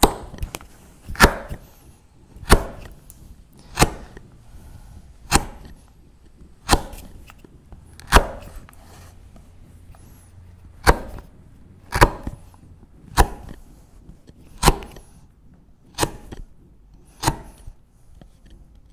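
A sharp 1-inch firmer chisel pushed down by hand, vertically paring the rounded end of a wooden wedge in little nibbles: a crisp snick each time the cut goes through and the edge meets the benchtop. About a dozen cuts, one every second and a bit, with a short pause about halfway.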